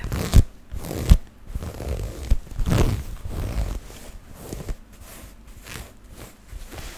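Black fabric garment rubbed and scratched by fingers close to a microphone: dense, irregular rustling and scratching strokes. Two sharp knocks come within the first second or so.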